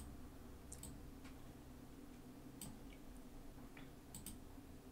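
Faint computer mouse clicks, a handful of short, sharp clicks spread apart, with two in quick succession near the end, over a low room hum.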